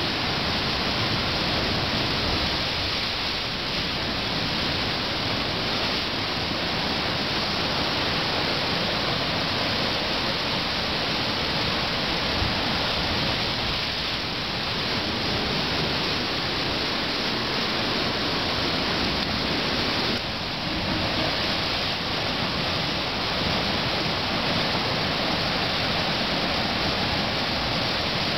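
Seawater surging and churning white against the rock walls of a deep landlocked sea hole, a steady rushing wash of surf.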